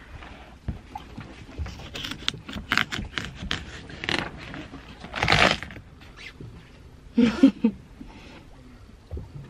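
A hand slapping and tapping the rind of a whole watermelon in a quick run of sharp taps. A longer noisy burst follows about five seconds in, and a short loud sound about two seconds later.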